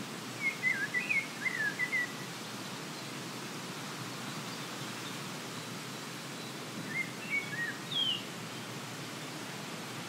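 A songbird sings two short phrases of quick, pitch-bending chirps, one near the start and one about seven seconds in, over a steady rush of breeze.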